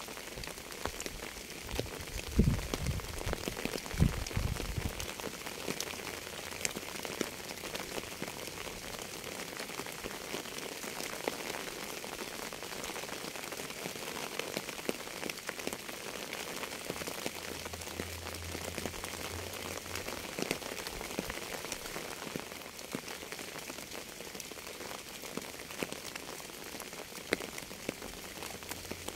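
Steady rain falling, an even hiss of many small drop ticks. Two low thuds stand out about two and four seconds in.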